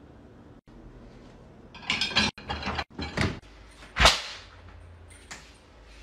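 Pull-start cord yanked four times in quick succession, each a short rasping whirr of a recoil starter, the last the loudest.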